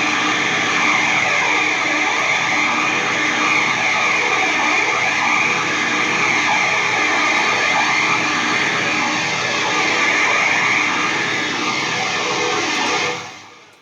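Doom metal band playing live: loud, distorted electric guitars holding a dense, sustained drone that cuts off sharply near the end.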